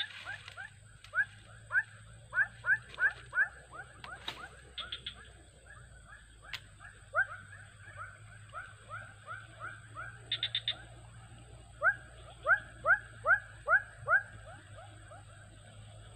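An animal calling in runs of short notes that fall in pitch, a few notes a second, with the loudest run near the end. A few brief high buzzy trills are mixed in.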